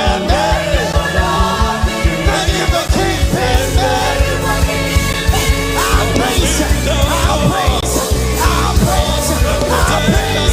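Live gospel band playing loudly, with drums, bass and singing voices.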